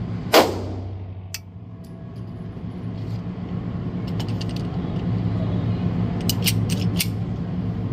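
One pistol shot from a 9mm Glock 43X fitted with a compensator, with a long echo, a little under half a second in. It is followed by a single click, then a run of sharp metallic clicks and clacks as the emptied magazine is set on the bench and the pistol is handled, over a steady low hum.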